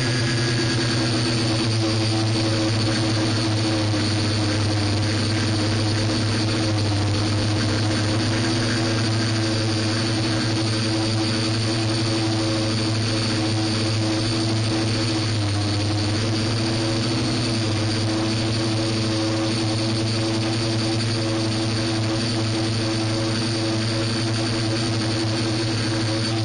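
Model aircraft's motor and propellers running steadily, as heard from its own onboard camera: a constant drone with a faint high whine over it.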